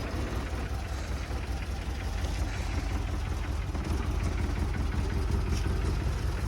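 Engine of a modified Maruti Suzuki Gypsy idling steadily, just running again after a hard start.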